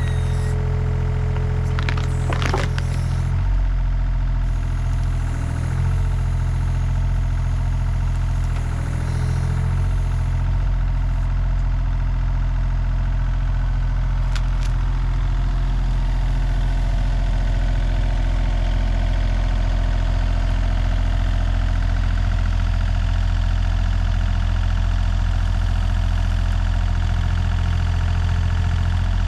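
Takeuchi TB235-2 mini excavator's diesel engine running steadily under hydraulic load while the bucket and thumb work a small stump out of the ground. A few sharp snaps come about two seconds in.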